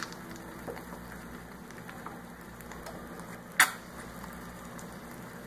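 Eggs frying on the hot nonstick plate of an electric sandwich grill: a steady, soft sizzle full of fine crackling ticks. A single sharp click sounds about three and a half seconds in.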